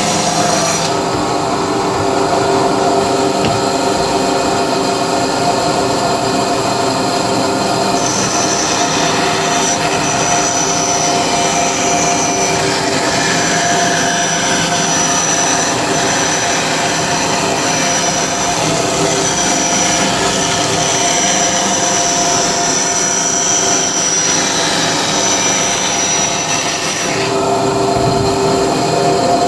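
A woodworking power tool running steadily, most likely cutting or shaping timber. A steady machine hum runs throughout, and a high whine joins about a quarter of the way in and drops out near the end.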